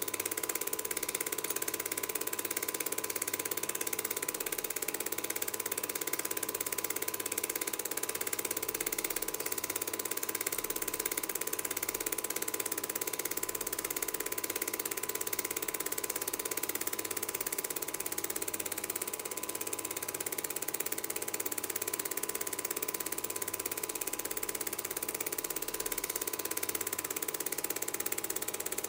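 Cine film projector running: the steady mechanical whir and chatter of the film-advance mechanism, over a constant hiss and a thin steady tone.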